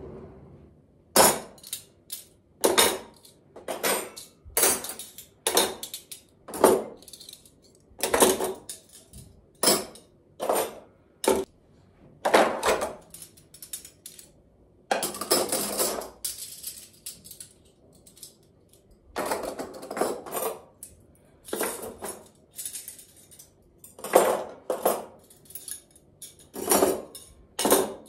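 Stainless-steel cutlery clinking as forks, spoons and knives are set one after another into a plastic drawer organizer: a run of irregular sharp clinks, with a couple of longer rattles around the middle.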